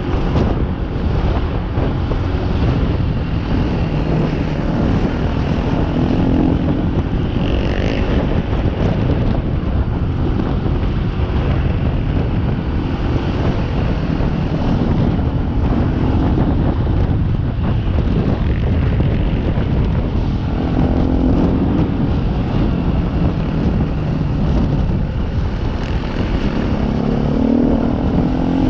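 Trail motorcycle engine running under way, its revs rising and falling, with wind noise buffeting the microphone.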